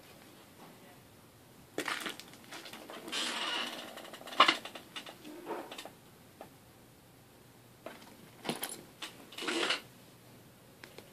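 A ferret scrambling over a fabric backpack: irregular rustling and scrabbling in short bursts, with a sharp click about four seconds in.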